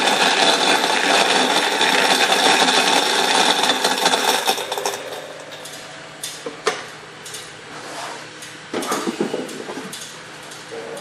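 Laboratory pellet mill crushing sunflower extraction meal, a dense grinding noise that falls away about five seconds in as the last of the meal passes through the mill. A quieter hum stays, with a few sharp metal clunks and knocks as the steel collecting drawer is handled.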